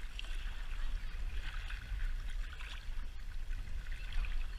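Wind buffeting the camera microphone as a steady low rumble, over water lapping and splashing against an inflatable kayak as it is paddled across choppy water.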